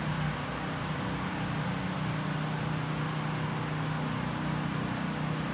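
Steady hum and hiss of indoor ventilation or air conditioning, even throughout with a low drone beneath a broad airy hiss.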